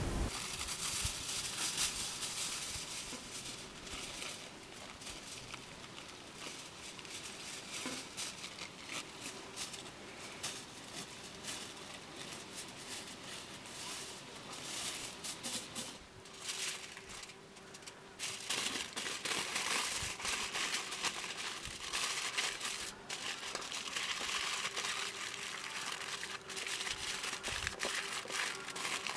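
Aluminium foil crinkling and rustling as it is torn from the roll and folded by hand around raw chicken drumsticks, with many small sharp crackles.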